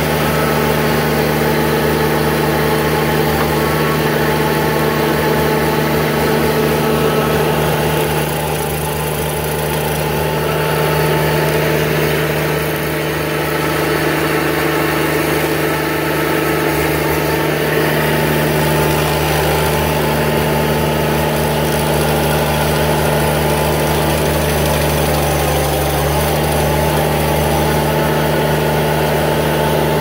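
Ditch Witch SK752 mini skid steer's diesel engine running steadily under load, driving an Erskine hydraulic stump grinder whose cutter wheel chews into a live oak stump and throws out wood chips.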